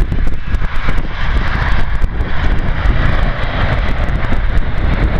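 Jet engines of an Airbus A320-family airliner running at high power as it rolls down the runway: a steady rushing noise that grows about a second in. Strong wind rumbles and crackles on the microphone over it.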